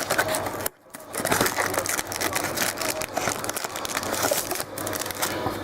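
Trading-card pack wrappers crinkling and tearing as packs are opened and the cards are handled, a dense continuous rustle that cuts out briefly just under a second in.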